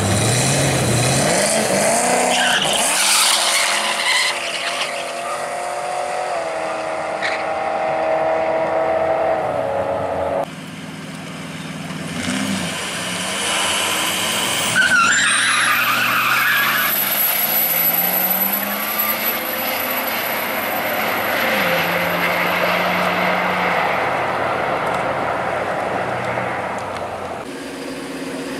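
Drag-racing cars at full throttle down the strip, their engines revving up and stepping in pitch as they shift, with a hard launch about halfway through.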